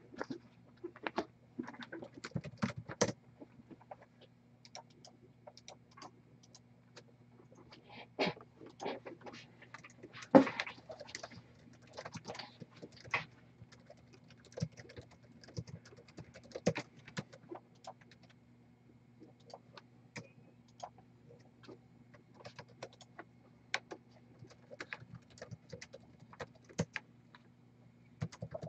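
Irregular clicks and taps of typing on a laptop keyboard, with one louder knock about ten seconds in, over a faint steady low hum.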